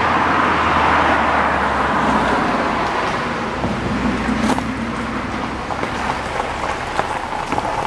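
A car driving up and turning in: steady tyre and road noise that slowly fades, then a scatter of small crackles as the tyres roll onto gravel over the last few seconds.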